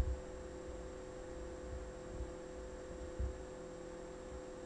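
Steady low electrical hum and faint hiss of the recording, with a few soft low bumps. There is a brief thump right at the start and a smaller one a little after three seconds.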